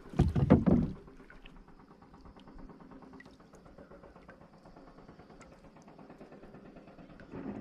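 A quick cluster of knocks and thumps against a small outrigger boat's hull, lasting about a second, then only faint background noise.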